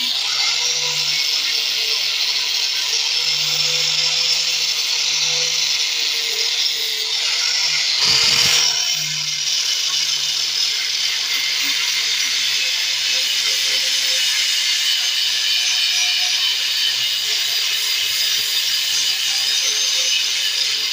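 Electric angle grinder with an abrasive disc running steadily against the rusted steel blade of a sickle, grinding off rust. Its motor whine wavers slightly as pressure on the disc changes, and the sound is briefly louder about eight seconds in.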